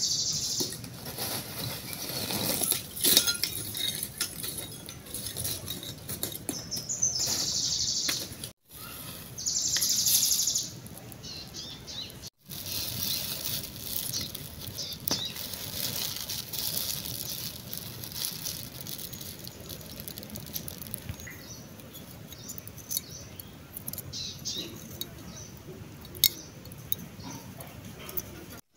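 Lumps of wood charcoal clinking and scraping against each other and the metal charcoal stove as they are handled, with the crackle of a plastic bag used to light the charcoal. The clicks come unevenly.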